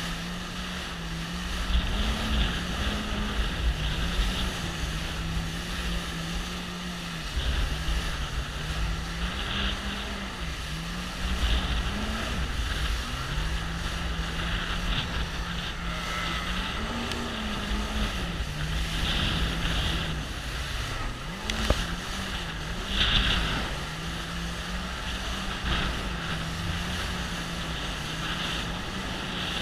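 Jet ski engine running at speed, its pitch stepping up and down a little with the throttle, over the steady rush of spray and wind buffeting the microphone. A sharp knock comes about two-thirds of the way through.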